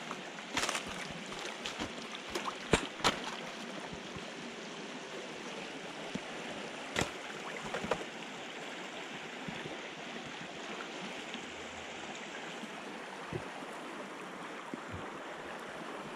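Shallow river running steadily over a stony riffle. In the first eight seconds or so, a scatter of sharp clicks and knocks sounds over it.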